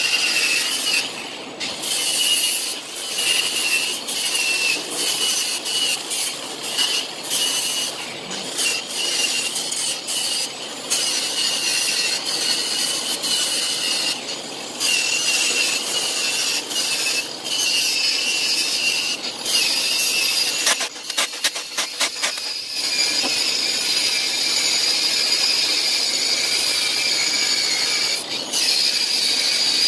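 Hand-held angle grinder grinding on a steel tube frame. It runs in repeated passes with a high whine, dropping off briefly between them, and there is a burst of rapid ticking about two-thirds of the way through.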